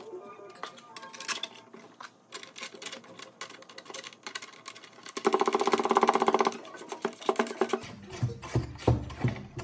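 Clicks and taps of metal sink-mixer fittings being handled, with a burst of fast rattling about five seconds in as a brass nut is spun up the threaded mounting stud.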